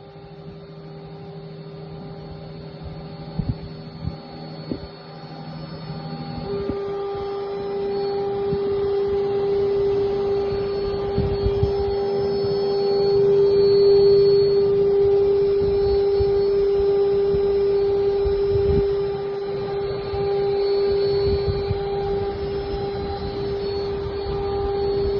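CNC stone-engraving machine running, its spindle giving a steady whine that grows louder about six seconds in, with occasional knocks.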